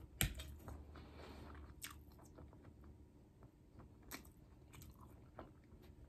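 A person chewing food, quiet, with a few faint sharp clicks scattered through.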